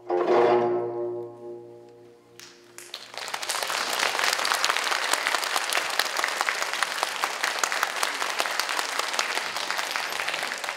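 An ensemble of Korean zithers sounds a final chord that rings and fades over about two seconds. Audience applause starts about three seconds in and keeps going.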